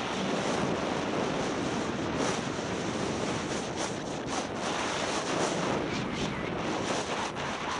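Steady rushing hiss of snow scraping under a rider sliding down a groomed ski run, mixed with wind buffeting the microphone.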